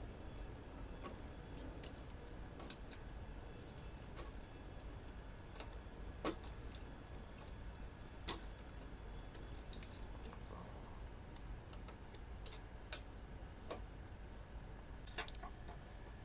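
Scattered small clicks and light taps, irregularly spaced, of screws, a screwdriver and plastic printer parts being handled while the printer is taken apart. A faint steady hum lies underneath.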